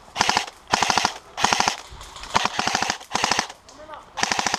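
Airsoft electric rifles firing about six short full-auto bursts, each a rapid rattle of shots.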